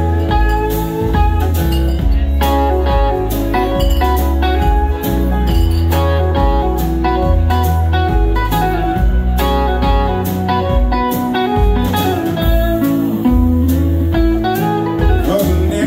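Live band playing an instrumental passage with no vocals: guitars leading over bass guitar and drums.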